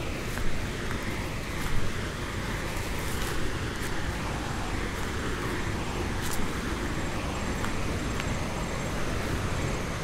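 Steady outdoor rushing noise, heaviest in the low end, with a few faint ticks.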